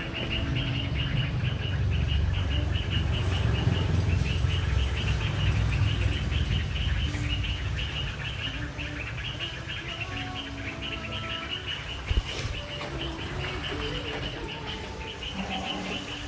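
Steady chorus of small birds chirping fast and high, with a low rumble over the first half that eases off.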